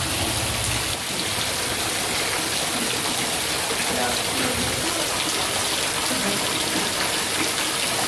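Thin streams of water falling from a rock overhang into a garden pond, a steady splashing hiss like heavy rain on the water surface. Faint voices are in the background.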